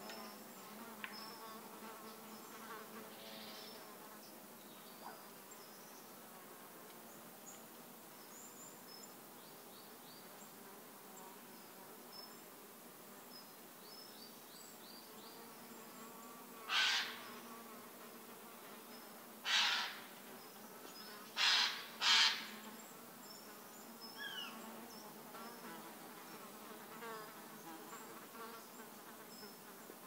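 Forest ambience of steady buzzing insects, flies or bees, with faint scattered bird chirps. About halfway through, four loud, harsh calls stand out, the last two close together.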